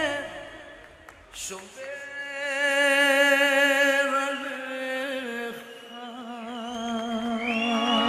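Hebrew ballad: a male singer holds long notes with a wide vibrato over soft accompaniment. The sound dips about a second in, then swells into a long held note. A higher sustained tone joins near the end.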